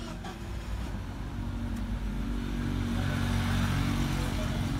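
A motor engine running and growing louder, its pitch rising slightly about halfway in, as if speeding up or coming closer.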